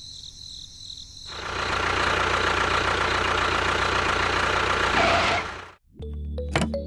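A small motor running steadily with a rattling buzz. It starts about a second in and cuts off abruptly near the end.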